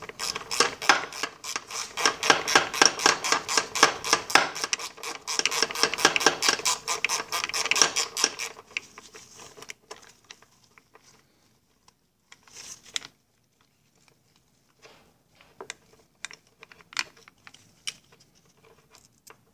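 Socket ratchet wrench clicking rapidly and evenly, about six clicks a second, as it backs out the bolt holding the outboard powerhead to the lower pan. After about eight seconds the run of clicks stops, leaving a few scattered light metal clicks and taps.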